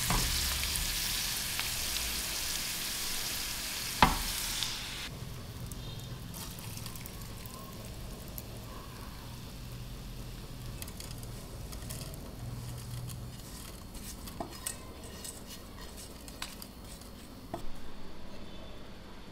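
Minced garlic and herbs sizzling as they fry in butter in a pan, stirred with a silicone spatula, with one sharp knock about four seconds in. About five seconds in the sizzle cuts off, leaving a quiet stretch of scattered light clinks and ticks as the hot garlic butter is strained through a metal mesh sieve into a glass bowl.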